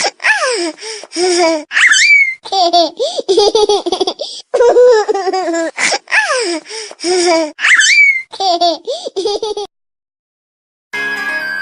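Baby-laugh ringtone: a baby giggling and squealing with high rising whoops, the same stretch of laughter playing again as a loop. It stops near the end, and after a second's pause a music jingle begins.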